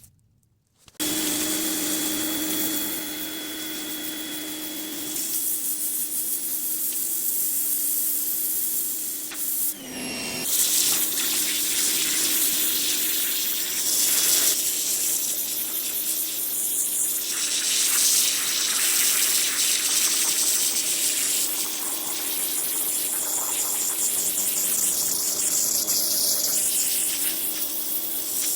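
Pressure washer running and spraying: a steady hiss of water jet with a constant pump hum. It starts about a second in and breaks off briefly about ten seconds in.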